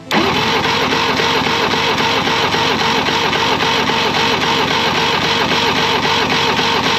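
Electric starter motor cranking a 1988 Evinrude 200 hp V6 two-stroke outboard with the ignition off for a compression test: a steady, rhythmic whir of the engine turning over against compression. It starts suddenly.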